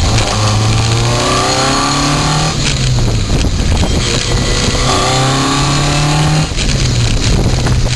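Car accelerating through the gears, with a whine that climbs in pitch with speed and breaks off at gear changes about two and a half and six and a half seconds in. This is the abnormal gearbox noise flagged in third gear.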